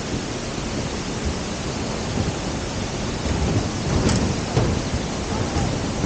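Wind buffeting the microphone in irregular low gusts, growing stronger partway through, over a steady rushing hiss of river water running over rapids. A sharp knock comes about four seconds in.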